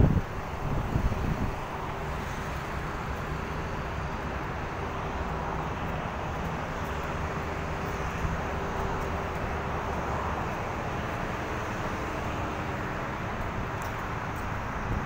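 Steady road traffic noise from a busy multi-lane city road, with wind buffeting the microphone in the first second or so.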